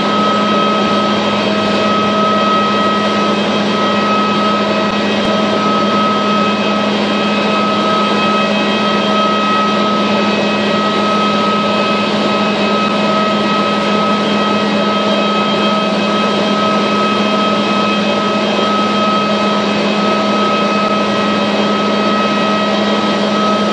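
Steady machinery drone on the ramp beside a parked jet airliner at its gate: a constant low hum under a steady high whine, with no change in pitch or level.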